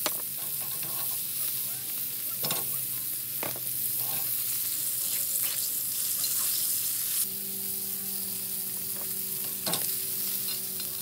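Tenderloin steaks and garlic sizzling steadily in hot fat in a cast-iron skillet. A metal basting spoon clinks against the pan a few times.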